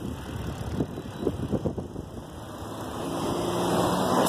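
Wind rumbling on a phone's microphone while cycling. From about three seconds in, a motor vehicle's engine hum grows steadily louder as it approaches.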